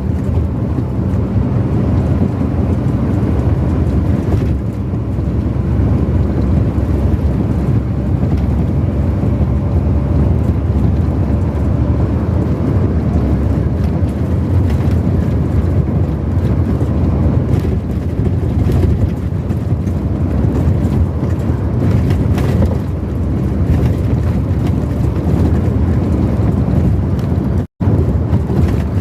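Steady vehicle road noise while driving along a highway: a low engine and tyre rumble with wind on the microphone. The sound cuts out for an instant near the end.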